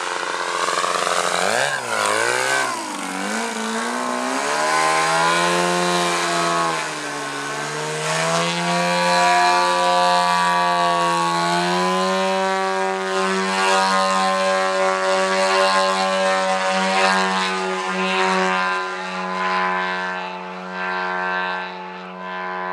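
DLE-222 four-cylinder two-stroke gas engine and propeller of a 44% Yak 54 RC plane in flight. The pitch swings down and up several times with throttle changes and passes, then holds steady at high power from about halfway, as the plane hangs nose-up in a prop hang.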